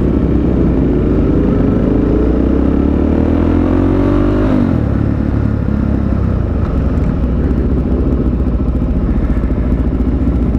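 Motorcycle engine accelerating under way, its pitch rising steadily for about four and a half seconds before dropping suddenly as the throttle comes off or it shifts, then running on steadily while riding.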